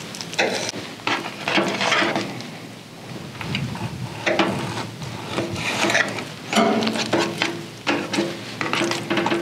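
Knife sawing through a venison backstrap to cut it into steaks, with irregular scraping and rubbing as the blade works through the meat and against the tray beneath it.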